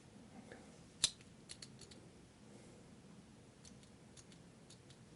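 Small plastic-and-metal clicks from a Pentel Graph Gear 1000 mechanical pencil being handled and clicked: one sharp click about a second in, then a few lighter clicks in quick groups.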